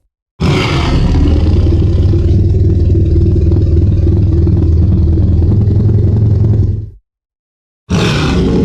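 Designed Godzilla monster sound effect, built from Zilla-style roar material: a loud, steady, deep rumbling that starts suddenly, holds for about six seconds, then fades out. After a short silence the next effect starts near the end.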